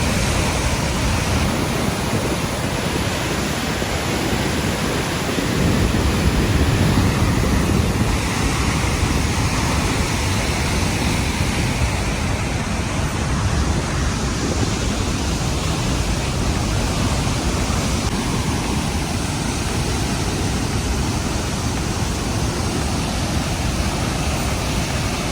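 Murchison Falls, where the Nile forces through a narrow rock gorge: a loud, steady rush of falling water, a little louder for a couple of seconds about six seconds in.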